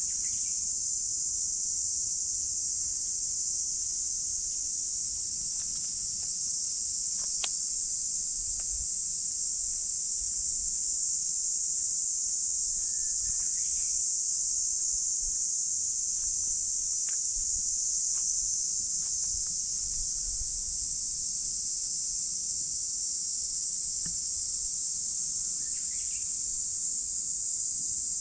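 Insect chorus: a steady, high-pitched drone that holds unchanged throughout.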